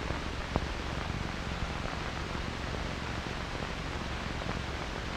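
Steady hiss of an old film soundtrack, with a sharp click about half a second in and a few faint ticks.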